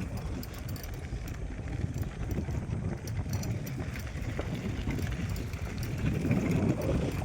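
Wind buffeting the microphone over the low, uneven rumble of a moving vehicle during a ride.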